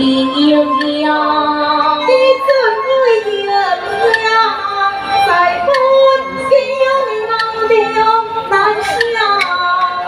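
Taiwanese opera (gezaixi) music: a female voice sings a gliding, held melody over instrumental accompaniment, with sharp percussion strikes now and then.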